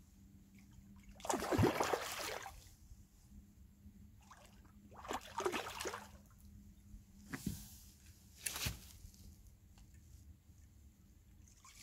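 Water splashing and sloshing in four separate bursts, the loudest about a second and a half in, the others around five, seven and a half and nine seconds in: a hooked fish being played at the surface on a pole line.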